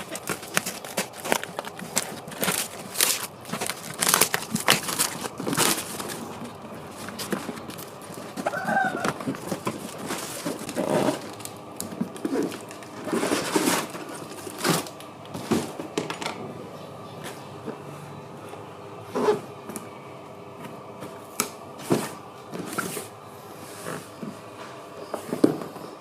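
Handling of RC car packaging: irregular crinkling, tearing and sharp plastic clicks as the box and parts are opened and moved about. A brief pitched call comes in the background about nine seconds in.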